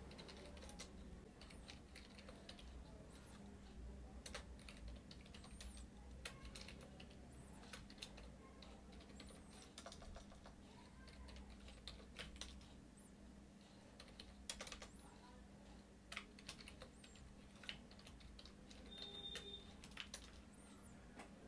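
Faint typing on a computer keyboard: irregular light key clicks as a line of code is entered.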